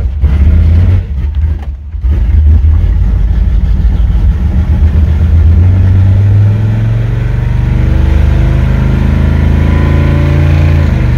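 1985 Chevrolet C10's ZZ4 350 small-block V8, heard from inside the cab while driving, running loud through long-tube headers and Spintech Pro Street mufflers. The sound dips briefly about a second in, then the revs climb about halfway through and hold fairly steady.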